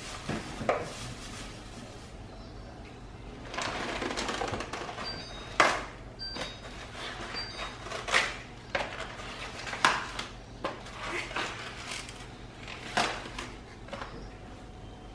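Groceries being handled and put away: rustling of cabbage leaves and a scatter of irregular knocks and clicks as items are picked up and set down.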